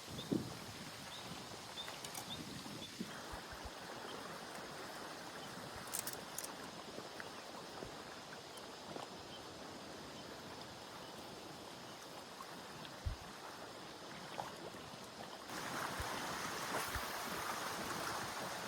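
Running water of a stream, steady, with a few faint clicks and knocks; the water grows louder near the end.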